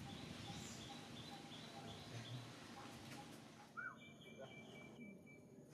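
Faint outdoor ambience with a steady run of short, high chirps, about three a second, which stops about three seconds in. Near the end the background changes abruptly and a few steady high tones sound.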